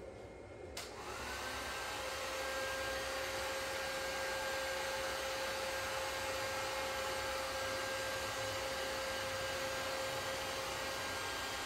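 Electric heat gun switched on with a click about a second in, its fan whirring up to speed and then running steadily, starting to wind down at the very end.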